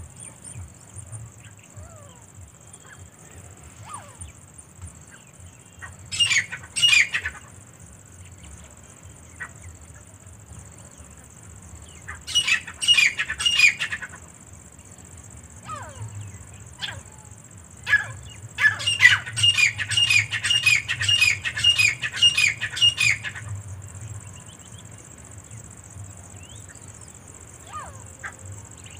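Grey francolins calling in three bouts of loud, rapidly repeated shrill notes: a short one about six seconds in, another near the middle, and a longer run of about five seconds later on.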